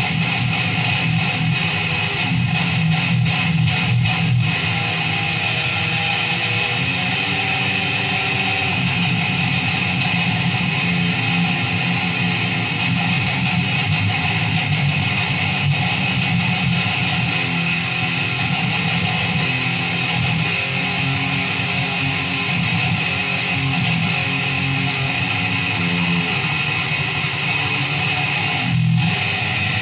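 Guitar playing without a break: quick repeated strokes for the first few seconds, then held notes that change about once a second.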